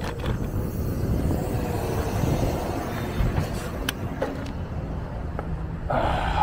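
City street traffic: cars passing with a steady low rumble of engines and tyres, louder for a moment near the end.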